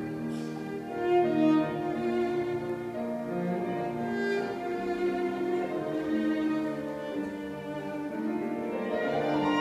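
Violin, cello and piano playing together, held notes over an accompaniment.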